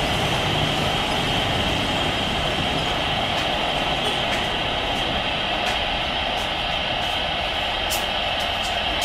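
Jet engines of a Boeing 787 airliner running steadily as it decelerates on the runway during its landing rollout, the noise easing slightly toward the end.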